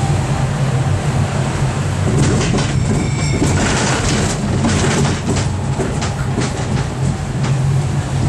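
Sightseeing train heard from on board, running steadily: a constant low rumble with rattling and clicking over it, and a brief high-pitched squeal about three seconds in.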